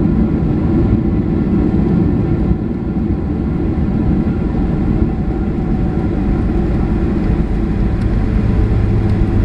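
Cabin noise of a Boeing 737-300 rolling on the ground after landing, heard from a seat over the wing: a steady low rumble of its CFM56 engines, airflow and wheels. A low steady hum joins in near the end.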